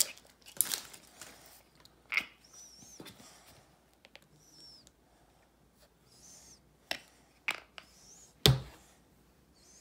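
Small clicks and rustles of a plastic squeeze tube of body lotion being opened and handled, with a few faint high squeaks and one louder sharp knock near the end.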